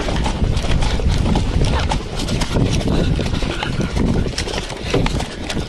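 Quick, uneven footsteps of a player running over the field, with gear rattling and wind rumbling on the body-worn microphone.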